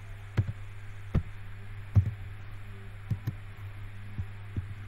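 Computer keyboard keys being pressed: several separate, irregularly spaced clicks over a steady low electrical hum.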